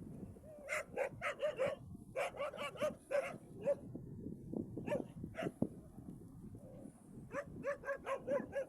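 Stray dogs barking in quick runs of sharp barks, with a few single barks between, as they go after donkeys.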